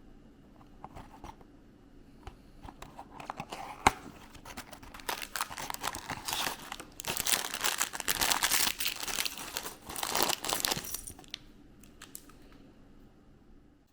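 Toy-set packaging being crinkled and torn open. The crackling builds up and is loudest for several seconds in the middle before dying away, with one sharp click about four seconds in.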